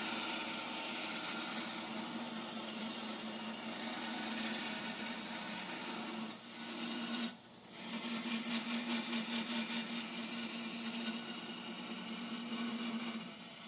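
Electric grinder running steadily, grinding the forged 5160 steel blade back to its marked shape. It drops out briefly about seven seconds in, then runs on with a slight pulsing.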